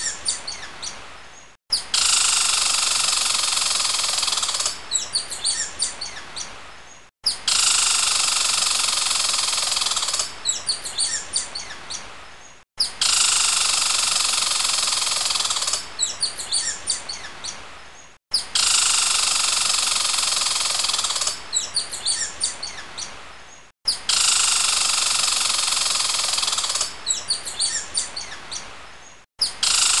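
A recording of many small birds chirping, looped over and over. It is a dense, twittering chorus with sharper single chirps in the second half of each pass, and each pass of about five and a half seconds cuts off abruptly into a brief gap before starting again.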